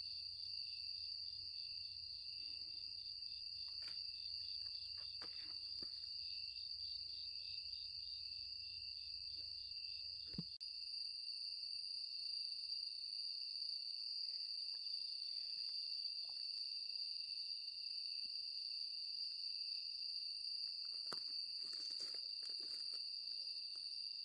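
Chorus of grass insects (crickets and katydids) trilling without a break in several overlapping high-pitched tones. A pulsing chirp among them stops about ten seconds in. A few soft knocks come through near the start, about ten seconds in, and near the end.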